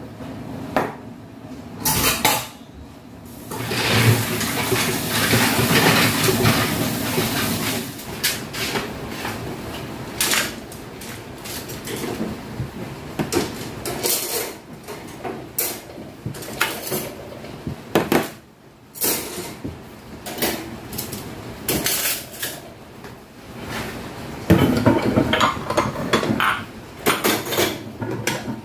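Ceramic bowls and plates clinking and clattering as they are stacked and set into a metal wire dish rack, with metal ladles and utensils knocking against them. About four seconds in, and again near the end, a few seconds of steady rushing noise run under the clatter.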